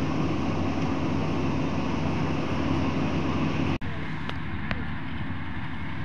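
Kubota DC-35 combine harvester running as it harvests rice: a steady diesel engine and machinery drone with a low hum. About four seconds in the sound drops out for an instant and comes back a little quieter and duller.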